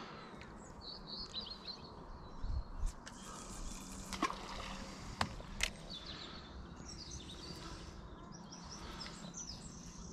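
Small birds chirping and singing, with a few light knocks and clicks from the rod and spinning reel being handled.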